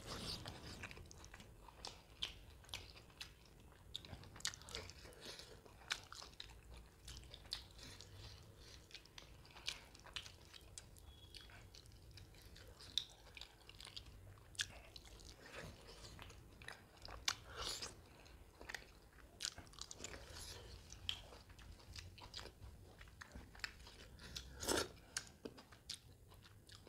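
Close-miked chewing of curry-soaked roti and mutton, with irregular wet smacks and mouth clicks.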